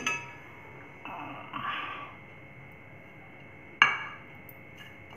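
Microwave oven door clicking open with a short ring, a brief scraping slide about a second later, and a loud clink of a dish set down on the counter near four seconds in.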